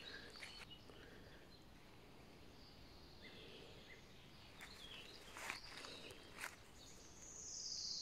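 Faint woodland ambience with distant birdsong: scattered high chirps and a higher trill that grows louder near the end, plus two soft rustles in the middle.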